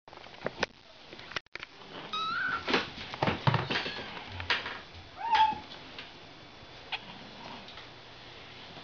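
Young Ragdoll kittens mewing: two clear high mews, about two and five seconds in, with clicks and rustling between them.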